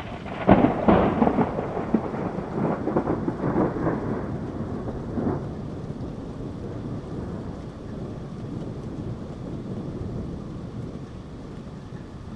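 A thunderclap crackling and rumbling over steady rain, loudest in the first few seconds and dying away after about five seconds, leaving the even hiss of rain.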